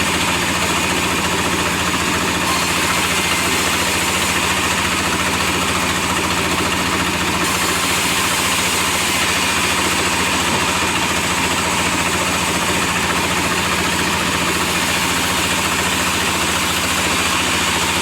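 Log sawmill machine running steadily: a continuous motor drone with an even, unchanging noise over it.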